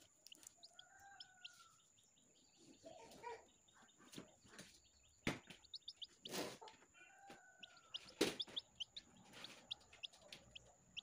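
Many short, high chirps of a hatching chick while its eggshell is peeled away by hand, with two sharp clicks of cracking shell. A lower, drawn-out chicken call rises and falls twice.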